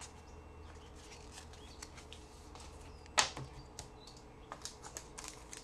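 Trading cards being handled: scattered light clicks and ticks, with one sharper click about three seconds in, over a faint steady room hum.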